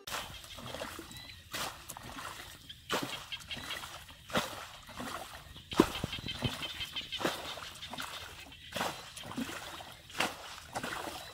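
Bare feet wading through shallow, muddy rice-field water, each step a splash or slosh about every second and a half, with the rustle of grass stems between.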